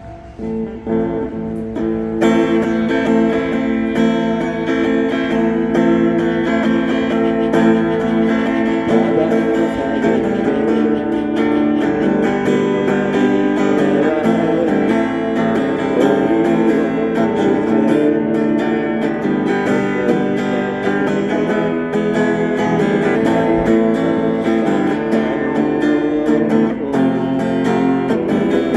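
Acoustic guitar strummed, playing a steady song accompaniment that swells up about a second in.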